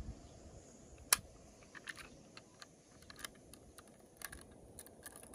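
Scattered light clicks and taps of hands working at a plastic toy package to open it, with one sharper click about a second in.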